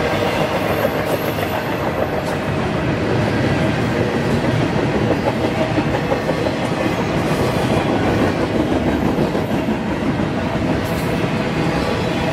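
Double-stack container freight train rolling steadily past, its well cars' wheels running and clattering on the rails.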